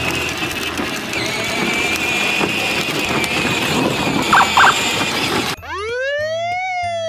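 High steady whine and outdoor noise from a child's electric ride-on car. About five and a half seconds in, the background cuts out and a police siren sound effect starts, rising in pitch and then slowly falling.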